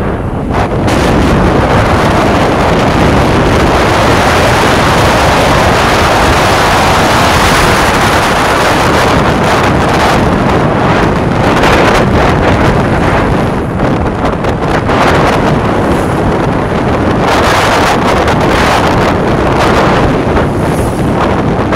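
Heavy wind buffeting the microphone on a moving ride, with the vehicle's running and road noise underneath, steady throughout.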